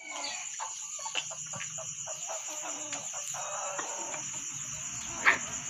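Ko shamo bantam pullets clucking in short, repeated soft notes, over a steady high-pitched whine. One sharp, louder sound stands out near the end.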